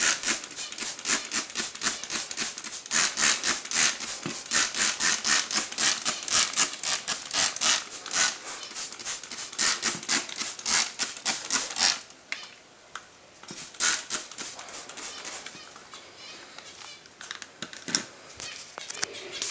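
Rapid squirts from a plastic trigger spray bottle spraying water onto a bathing pigeon, several sharp hissing squirts a second. The spraying stops about twelve seconds in, leaving only a few scattered squirts.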